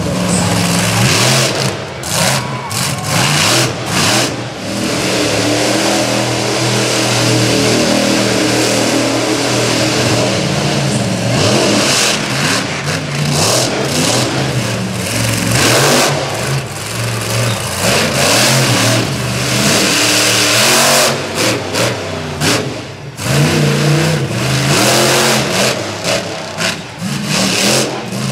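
Monster truck engines revving hard in repeated surges, the pitch climbing and falling, with short drops where the throttle comes off.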